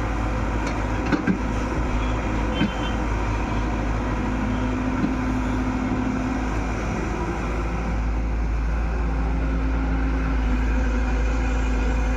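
Excavator's diesel engine running steadily, with a few short sharp knocks in the first few seconds.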